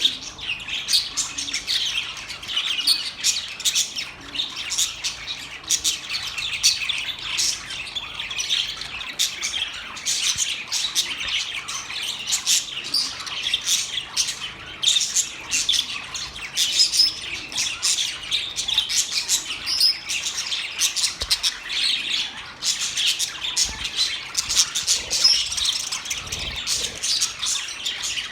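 Budgies (budgerigars) chattering and warbling without a break: a dense stream of quick, high chirps and short calls from several birds at once.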